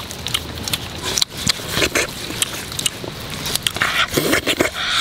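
Hands rubbing chopped red chilli and seasoning into raw turtle meat: a rapid, irregular run of wet squishes and small clicks.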